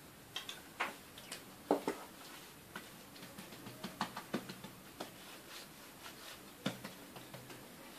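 Light, irregular taps and soft clicks of a spoon and hands spreading oil over folded pastry dough on a board.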